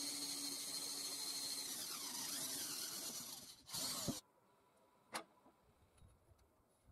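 Cordless drill running steadily as its bit cuts through sheet metal, then a short burst about four seconds in with the motor pitch falling away as it winds down. A single sharp click follows about a second later.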